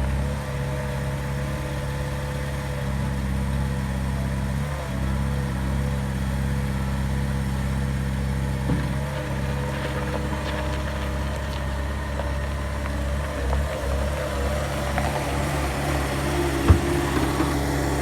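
CAT 226-3 skid steer's diesel engine idling steadily, with a single sharp knock near the end.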